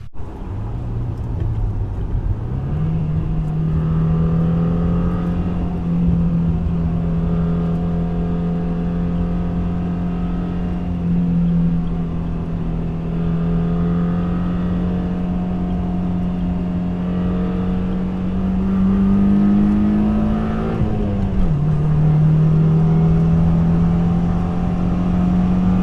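2015 Subaru WRX's turbocharged flat-four running through an Invidia N1 cat-back exhaust, holding a steady drone under load. The pitch climbs a little, drops sharply about 21 seconds in as revs fall, then settles into a steady drone again.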